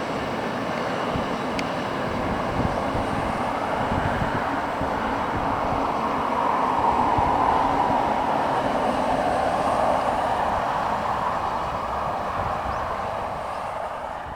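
Freight train of an EH200 electric locomotive and twelve Taki 1000 tank wagons rolling past, a steady rumble and wheel noise on the rails that swells to a peak about halfway through and then fades.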